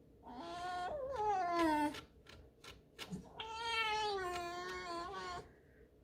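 Pet fox giving two long, squeaky whining cries, the second a little longer, with a few faint clicks in the gap between them.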